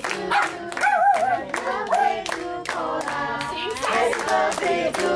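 People singing together while clapping along in a steady beat, about three claps a second.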